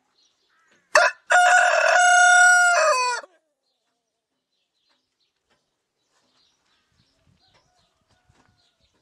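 Rooster crowing once, about a second in. A short clipped first note is followed by a long held call of about two seconds that falls in pitch at the end.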